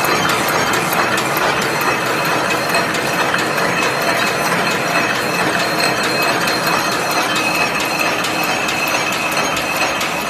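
Barbed-wire making machine running: a steady, rapid mechanical clatter of clicks from its gears and mechanism, with a steady high whine over it.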